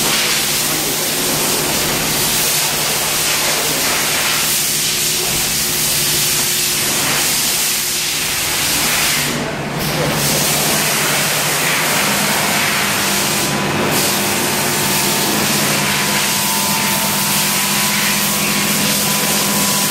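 Electric dry-fog machine running, a steady loud hiss of fog spraying out over a constant motor hum that shifts slightly in pitch about twelve seconds in.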